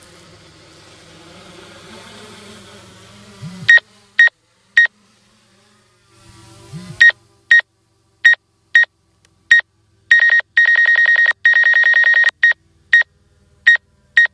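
A faint steady hum gives way about four seconds in to loud, high electronic beeps. The beeps come one at a time, about half a second to a second apart, with a run of rapid, unbroken beeping about ten seconds in that lasts some two seconds.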